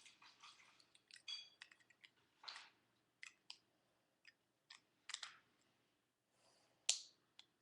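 Faint, scattered clicks and clinks of a Beyblade top being put together by hand, its metal fusion wheel and plastic parts tapping and snapping into place. The loudest clicks come about two and a half, five and seven seconds in.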